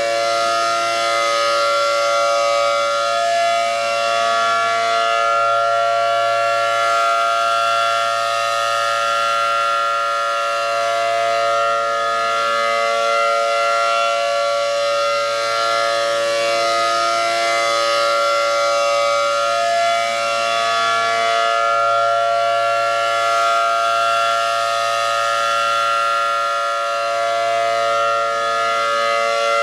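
Mobile siren sounding a test alert: a steady chord of several held tones at nearly constant pitch, wavering slightly.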